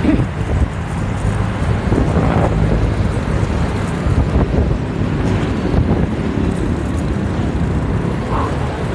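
A motorcycle's engine running steadily while riding in traffic, under wind rush on the microphone and the noise of the road and other vehicles.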